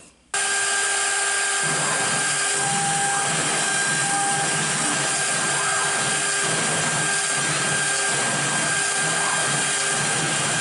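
CNC router spindle running steadily at high speed as a 90-degree V-bit carves into MDF. The sound cuts in suddenly just after the start and holds even, a dense hiss with a steady whine in it.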